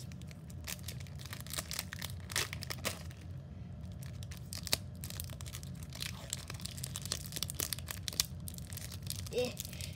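Foil wrapper of a Pokémon Shining Legends booster pack crinkling and tearing as it is ripped open by hand, a steady run of sharp crackles.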